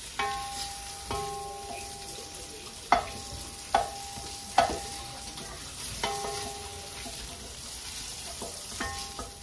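Onions sizzling in hot oil in a non-stick wok while a wooden spoon stirs them, with three sharp knocks a little under a second apart near the middle.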